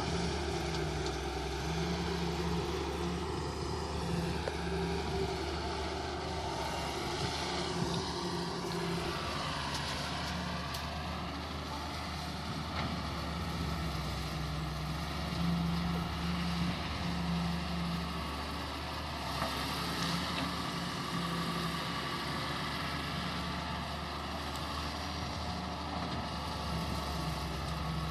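Wheel excavator's diesel engine running steadily, with a higher whine that dips and rises in pitch about ten seconds in.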